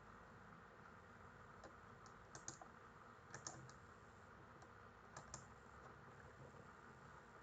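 Faint computer keyboard keystrokes, a few scattered clicks in small groups, over a steady low hiss.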